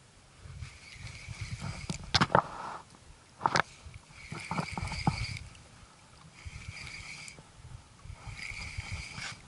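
Shimano Biomaster spinning reel being cranked in stop-start bursts of about a second each, whirring steadily while a lure is retrieved. A few sharp knocks and clicks from handling the rod come between about two and five seconds in and are the loudest sounds.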